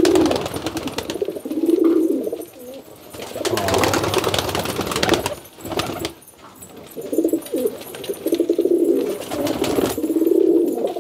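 Domestic pigeons cooing over and over, several birds at once. A flurry of wing flaps and scuffling comes about four seconds in.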